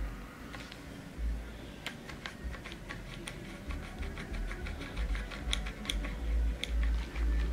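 Plastic grabber tool clicking and rattling as its jaws are worked through a cat's fur: irregular sharp clicks, several a second, starting about two seconds in, over an intermittent low rumble.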